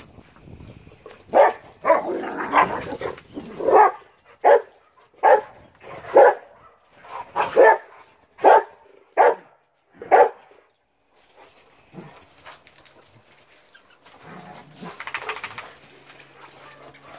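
Hairless dogs barking as they run about at play: a run of about a dozen sharp barks, roughly one a second, that stops about ten seconds in.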